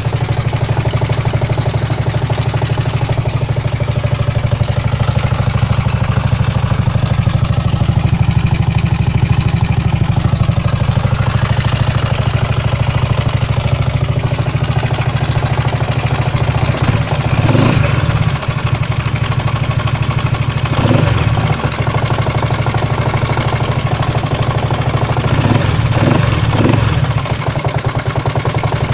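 139QMB 50cc four-stroke single-cylinder scooter engine idling with a rapid knock. The throttle is blipped briefly about halfway through, again a few seconds later, and in quick succession near the end. The knock is a new fault whose cause the owner does not know.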